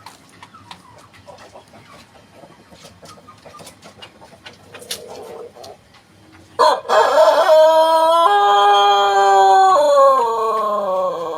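White Pelung rooster crowing one long crow, starting about six and a half seconds in: a rough opening, then a long held note that falls in pitch as it fades near the end. Before it, only faint clicks.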